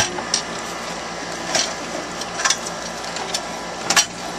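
Scattered sharp knocks and clunks of a refrigerator being handled and shifted during a move, about five in all, the loudest about four seconds in, over a steady background hum.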